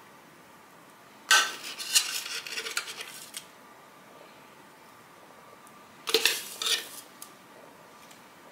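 Metal spoon scraping and clinking against a baking tin while spreading biscuit crumbs, in two bouts: one about a second in lasting a couple of seconds, another about six seconds in.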